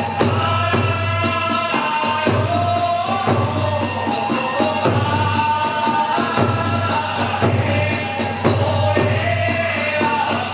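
Kagura hayashi music: drum and small hand cymbals striking fast and evenly, about four to five beats a second, under a held, wavering melody line.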